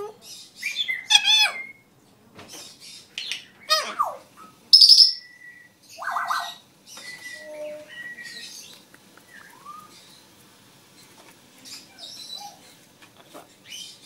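African grey parrot making a string of short calls: gliding whistles, chirps and squawks, with a loud, short, high whistle about five seconds in.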